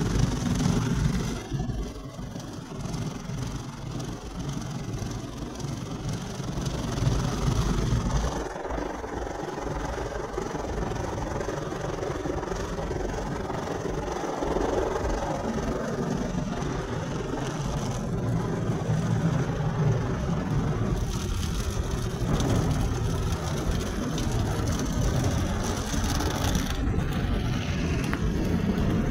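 Automatic car wash heard from inside the car: water jets spraying over the windscreen and bodywork and rotating wash brushes sweeping across the glass, a steady dense rush that shifts in tone a few times as the wash moves through its stages.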